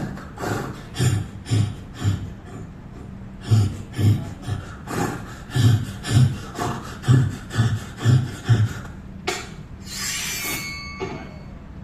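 Foley horse hoofbeats for a film: rhythmic paired knocks with a heavy thud, like a horse galloping, stopping about nine seconds in. A short rushing, hissing sound with a few thin tones follows near the end.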